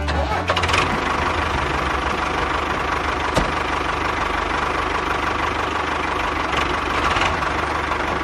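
Diesel engine of a construction machine running steadily with a rough knocking rattle and a low rumble, with a sharp click about three and a half seconds in.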